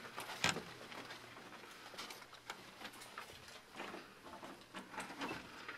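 Footsteps of two people walking: soft, irregular taps and clicks.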